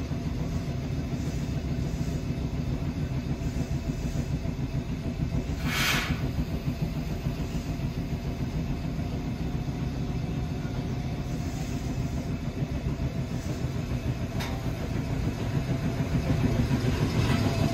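Tobu 6050 series electric train standing at a platform, then pulling away. Its equipment hums steadily, with a short hiss of air about six seconds in and a sharp click later. The motor and wheel noise grows louder near the end as the train starts moving.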